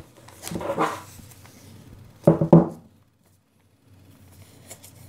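Hands handling an Amazon Echo Show wrapped in plastic protective film: soft rustling and knocks, with two sharp knocks about two seconds in, then a short silent gap.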